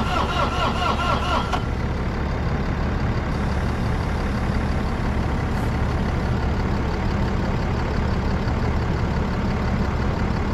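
Bobcat excavator engine cranking on its starter while being jump-started for a dead battery, a rapidly repeating whine that cuts off about a second and a half in without the engine catching. A heavy-duty truck engine idles steadily underneath throughout.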